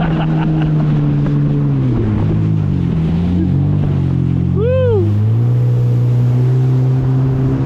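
Jet ski engine running under way, its pitch dropping over a couple of seconds and then holding steady at a lower speed, over wind and water noise. About halfway through, a brief tone rises and falls.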